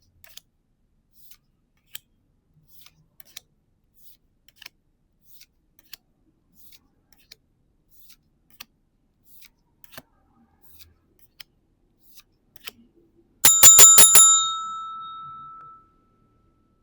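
Faint scattered clicks and taps of trading cards being handled, then near the end a small bell rung in a quick trill of about five strikes that rings on for about two seconds.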